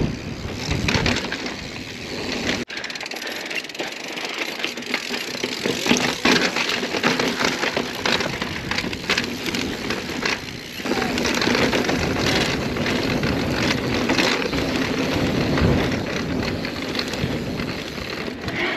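Mountain bike being ridden over a rocky desert trail: steady rushing tyre and ride noise with many sharp knocks and rattles. The sound changes abruptly about 3 seconds in and again about 11 seconds in.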